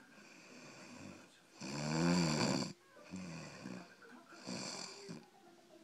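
Snoring: one loud, drawn-out, wavering snore about two seconds in, followed by several fainter, shorter snores.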